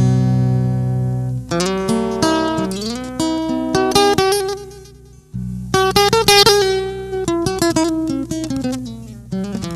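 Background music of plucked acoustic guitar. It fades away a little past halfway, then starts up again.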